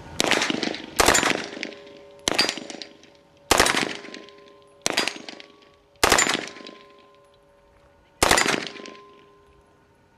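MP5 submachine gun fired in about seven short bursts of several shots each, coming every second or so with a longer pause before the last, each trailing off in echo.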